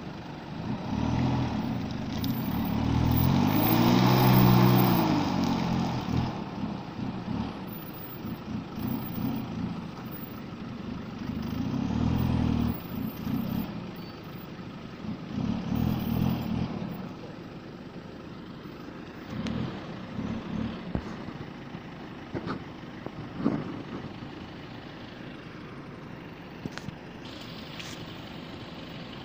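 Isuzu D-Max pickup's engine revving in repeated bursts as it pushes through slippery mud, the pitch climbing and falling with each burst. The revving dies down about two-thirds of the way through, leaving a lower, steady engine sound with a few faint knocks.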